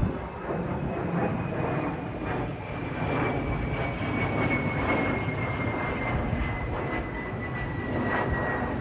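Jet airliner flying overhead: a steady engine rumble with a high whine that falls slowly in pitch as the plane passes.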